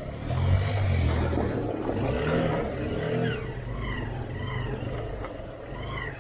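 Motorcycle engine revving, swelling sharply about a third of a second in and then running on more steadily.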